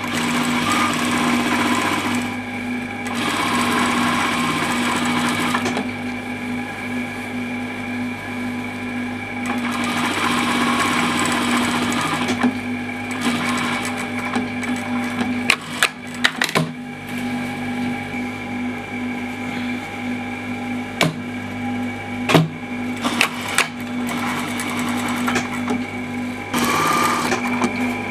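Brother industrial sewing machine stitching fabric in several runs, its motor humming steadily in between. There are a few sharp clicks around the middle.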